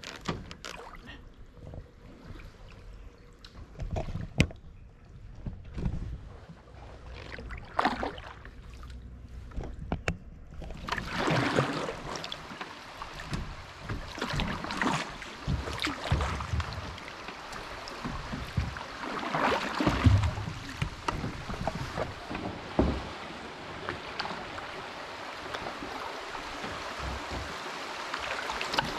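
Canoe paddling on a small river: paddle strokes dipping and pulling through the water, with water splashing and running along the hull, starting about ten seconds in. Before that there are only a few faint knocks.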